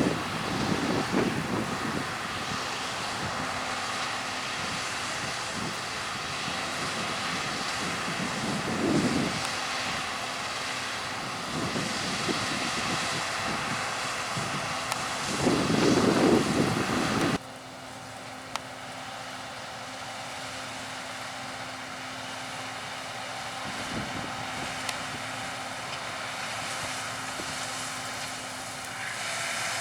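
Harvest machinery engines running steadily in the field, with gusts of wind buffeting the microphone. A little over halfway through, the sound drops abruptly to a quieter, steady engine hum.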